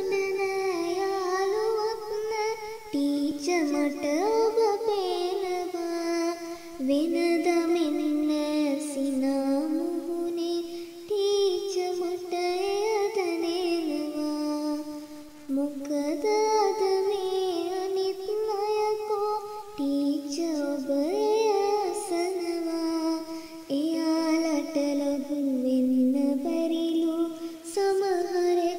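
A single high voice, a girl or young singer, singing a Sinhala song in phrases of a few seconds, with long wavering held notes.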